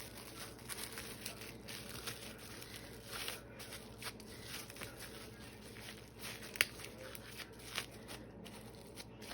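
Faint crinkling and rustling with scattered small clicks, and one sharper click about two-thirds of the way through: hands rolling and wrapping a raw chicken breast tightly around a piece of compound butter.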